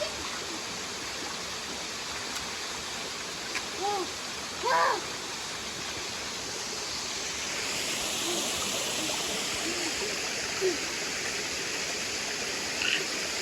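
Steady rush of cascading water from a mountain stream and waterfall, growing louder and brighter a little past halfway. A few short pitched vocal sounds break through around the middle.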